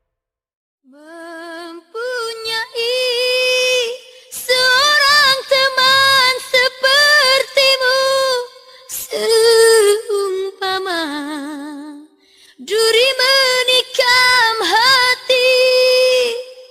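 A woman singing a slow ballad, with wide vibrato on long held notes and little or no accompaniment. The voice comes in about a second in and pauses briefly around two-thirds of the way through.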